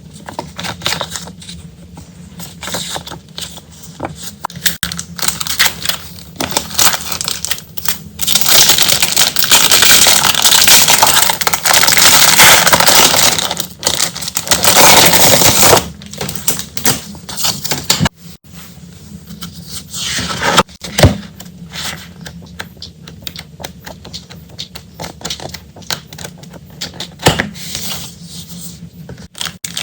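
Packaging and paper being handled and unwrapped: rustling and crinkling with scattered clicks and taps, at its loudest in a dense stretch of crinkling from about eight seconds in that lasts several seconds.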